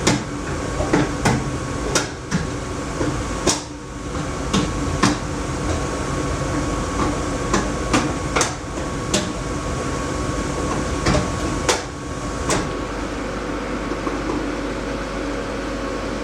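Laars Mini-Therm II gas boiler running with a steady hum and an irregular rattle of sharp knocks, about one a second. The knocking stops about three-quarters of the way through, leaving the steady running hum.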